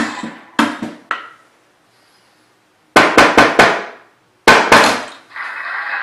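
Knuckles knocking on the lid of a wooden box fitted with a knock sensor: after three sharp knocks near the start and a pause, a knock code is rapped out, four quick knocks then two more. This is the secret-knock pattern that releases the box's magnetic lock.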